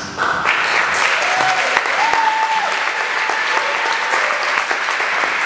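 Audience applauding loudly, with one held high cry from someone in the crowd about two seconds in.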